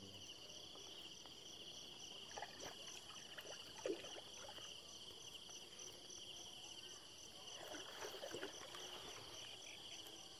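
Crickets chirring steadily in a high, fast-pulsing drone. Now and then there are faint splashes and drips as a fishing net is hauled by hand from the water into a small boat.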